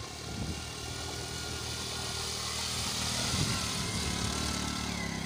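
Small commuter motorcycle engine running steadily as the bike splashes through shallow water, growing louder as it approaches.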